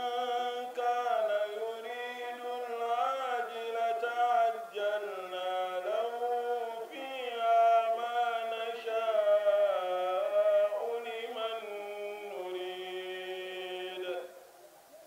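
A man chanting solo into a handheld microphone, Islamic religious chant, in one long melismatic phrase of held notes that slide and waver in pitch; the voice breaks off near the end.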